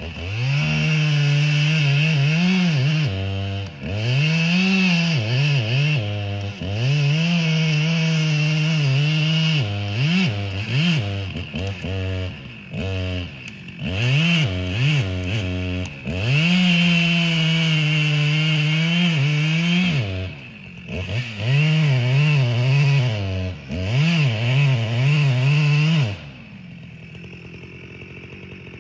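Chainsaw cutting into a tree: the engine revs up and holds at high speed for several seconds at a time, dropping back between cuts, then falls much quieter near the end.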